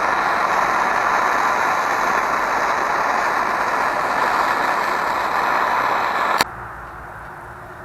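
Steady hiss of a gas torch flame heating a seized steel stud in an aluminium timing cover, cutting off abruptly about six seconds in.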